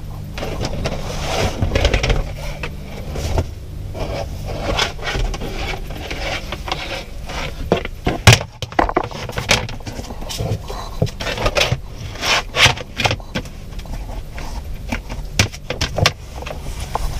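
Irregular clicks, knocks and rattles of things being handled, over a steady low hum, with one sharp click about eight seconds in.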